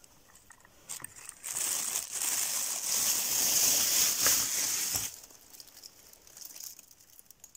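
Thin plastic carrier bag crinkling and rustling for about four seconds as it is handled and hung on a hand-held scale, loaded with computer processors, with a few light clicks about a second in.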